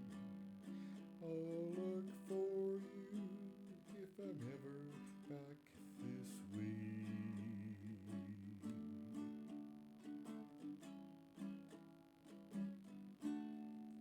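Ukulele strummed through the closing chords of a folk song; a last strum near the end rings out and fades away.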